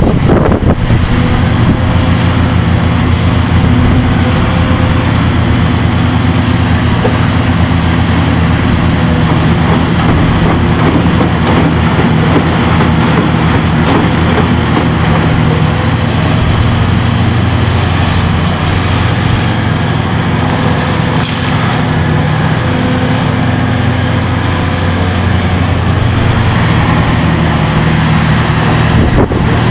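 Hitachi ZX690LCH-6 excavator's diesel engine running steadily under load as the machine digs and lifts earth with its bucket, its pitch shifting a little now and then.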